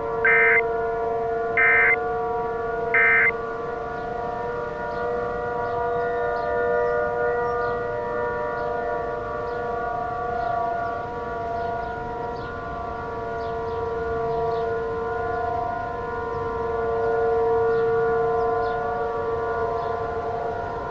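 A civil defense siren sounds a steady chord of several tones. Near the start, three short electronic data bursts come about a second and a half apart: the Emergency Alert System end-of-message signal.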